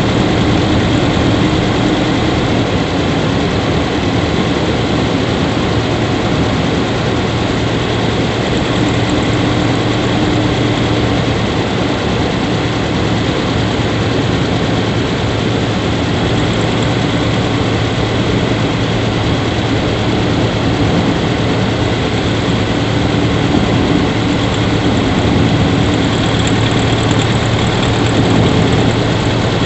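Subaru Levorg 1.6GT-S turbocharged flat-four idling steadily, heard at the engine bay. The owner suspects an abnormal squeak from the engine compartment that grows louder the longer it runs.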